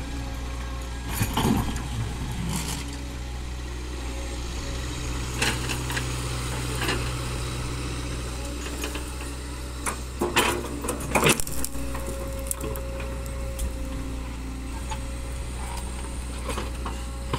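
Hydraulic excavator's diesel engine running steadily as the bucket digs into and dumps dry, stony soil, with scattered knocks of rock and a burst of loud clattering and scraping about two-thirds of the way through.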